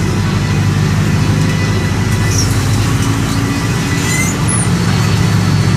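The Cummins ISF four-cylinder inline diesel of a Volksbus 9-160 OD bus running steadily, heard from on board the moving bus, with a few faint high squeaks from the body.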